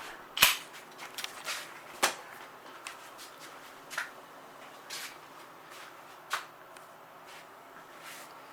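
Scattered light taps and clicks at irregular moments, the loudest about half a second in, over a faint steady hiss in a small room.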